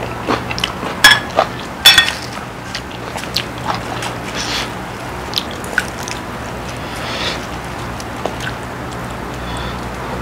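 Someone eating from a bowl: soft chewing and small clicks of a spoon, with two sharper clinks against the bowl about one and two seconds in.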